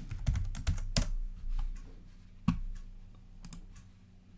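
Computer keyboard typing: a quick run of keystrokes in the first second, then a few separate clicks, the sharpest about two and a half seconds in.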